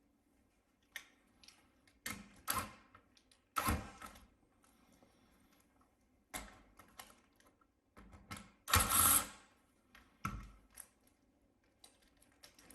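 Scattered clicks, taps and light clatter of plastic and metal laptop parts being handled and fitted during reassembly, with a louder half-second burst of noise about nine seconds in.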